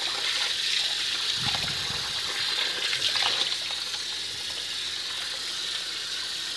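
Tap water running steadily into a stainless-steel strainer of quinoa and splashing through the grains as a hand scrubs them, rinsing off the yellow water that would leave the quinoa bitter.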